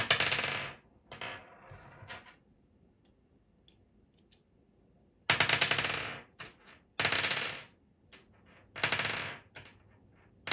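A small metal bolt clattering and rattling on a wooden tabletop as it drops off a hex key's tip. There are five short rattling bursts, each well under a second.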